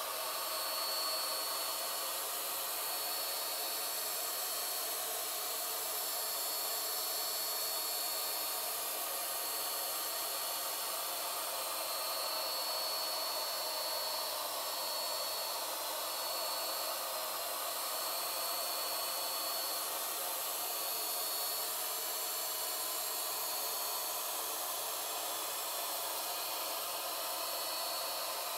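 Wagner W 550 electric HVLP paint sprayer running steadily while spraying giclee varnish onto a canvas print: an even hiss of air and spray with a thin high whine from the sprayer's turbine.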